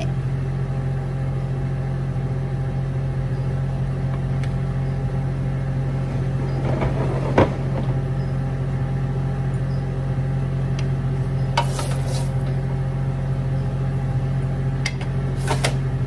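Steady hum of a running motor at one constant pitch. A single short knock comes about midway, and brief clicks follow about three-quarters through and near the end.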